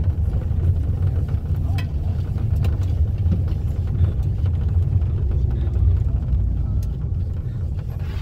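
Steady low engine and road rumble of a moving vehicle, heard from inside the cabin.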